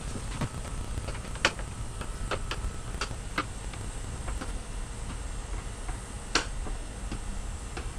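Irregular light clicks and taps of hard plastic car-bumper and grille parts being handled and fitted, about one or two a second, over a low steady hum.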